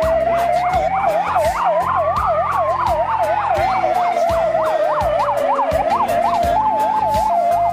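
Police vehicle sirens sounding together: a fast yelp, about four sweeps a second, over a slow wail that rises and then falls, with a two-tone high-low siren joining about six seconds in.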